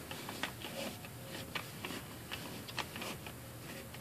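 Irregular small clicks and ticks as fingertips press yarn strands down over the white plastic pegs of a Loopdeloom weaving loom.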